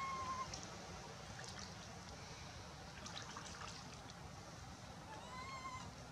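Shallow water splashing and trickling as a baby macaque is pulled through a pool. The baby gives a thin, high-pitched cry right at the start and another short, arching cry about five seconds in.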